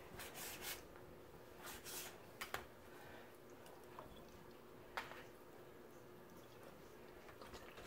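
Faint, wet squishing of thin raw whitefish slices being cut and pressed by hand into a small glass canning jar, with a few light clicks and taps, a sharper one about five seconds in.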